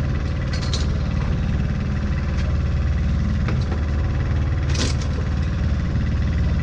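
A boat's engine running steadily at idle, a loud low drone with an even pulse. A short rustle about five seconds in.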